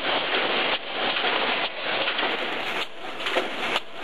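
Automatic wire mesh welding machine running, its row of pneumatically driven welding heads cycling with a rough hissing clatter that repeats about once a second. Sharp clicks join in over the last second.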